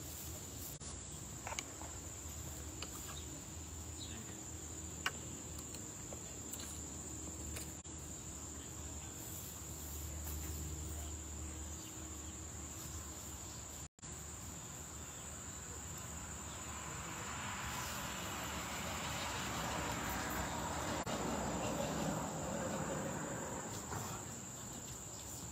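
Steady high-pitched insect chorus. Partway through, a broad rushing noise swells and then fades over several seconds. There are two faint clicks in the first few seconds.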